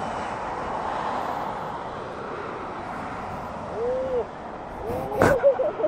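Highway traffic noise: a steady rush of vehicles passing on the road beside the shoulder. About four seconds in comes a short call that rises and falls, and near the end a sharp sound.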